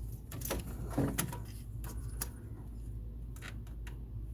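Scattered light clicks and knocks of brake parts being handled, over a steady low hum.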